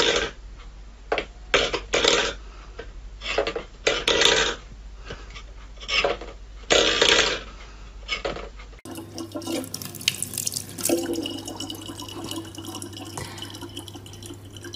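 A stainless steel bowl clattering irregularly on a wooden floor as a cat paws at it. About nine seconds in this gives way to a thin stream of tap water running steadily into an open plastic bottle.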